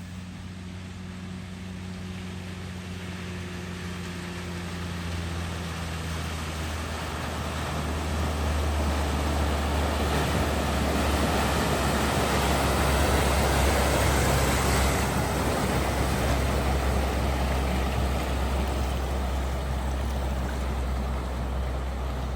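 A vehicle's engine running steadily as it drives through deep floodwater, with a rushing wash of water. Both grow louder towards the middle and then ease off.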